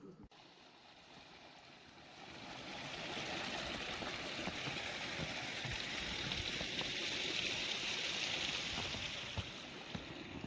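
Steady rushing of running water, swelling about two seconds in and then holding even.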